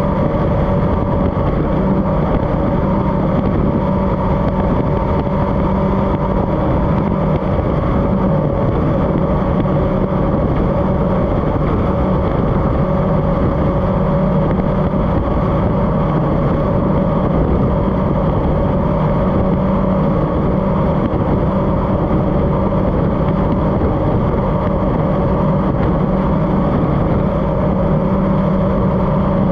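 Racing powerboat's engine running at speed at a steady pitch, heard from on board the boat.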